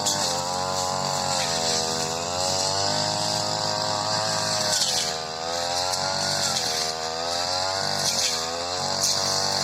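Supra SPR328 brush cutter's small two-stroke engine running at high speed, its pitch sagging and recovering several times as the spinning cutter bogs in thick, tall grass.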